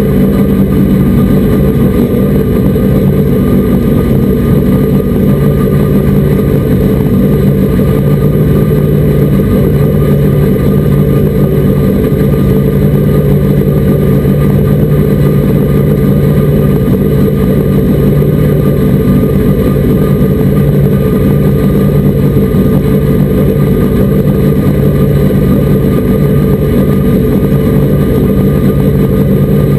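Race truck engine running loud and continuously at speed, its pitch holding nearly steady with only slight rises and falls.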